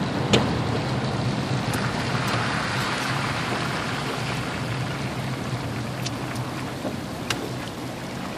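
Steady road and engine noise heard inside a moving car: tyres running on the road with a low hum beneath, and a few faint clicks.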